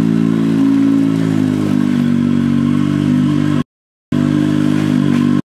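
Engine of a Can-Am side-by-side running with a steady, slightly wavering note, cut off abruptly twice by edits.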